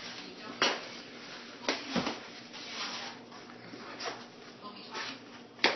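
Wrapping paper rustling and crinkling as a gift is unwrapped by hand, with a few sharp crackles, the loudest near the end.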